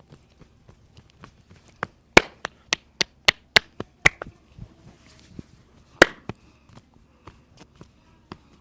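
Hand strikes of a percussive head and back massage: light taps throughout, a quick run of about seven loud, sharp slaps starting a little after two seconds in, and one more loud strike about six seconds in.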